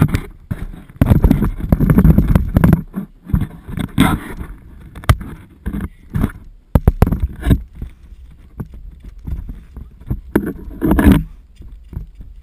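Close handling noise from a GoPro carried on a stick by a black Labrador: irregular knocks, thuds and rubbing against the dog's fur and the stick as it is jostled about, with louder rumbling bursts near the start and again about eleven seconds in.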